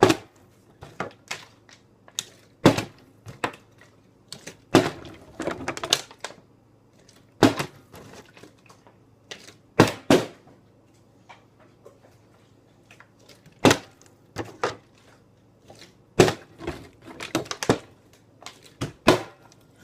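A series of sharp knocks and clattering thuds, irregularly spaced, as a small thrown object lands and bounces against hard surfaces again and again.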